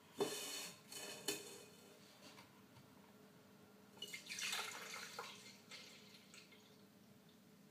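Milk poured from a carton into a plastic measuring jug, splashing, loudest about four to five seconds in and quieter after. A couple of short knocks and rustles from handling the jug and carton come in the first second or so.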